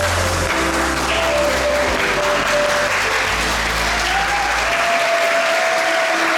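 Audience applauding while music plays; the music's bass line drops out about five seconds in.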